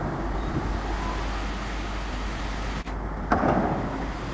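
Indian Railways WDM3A diesel-electric locomotive's ALCO 251 engine running with a steady low rumble as the locomotive pulls slowly in, with a sudden louder rush of noise about three seconds in.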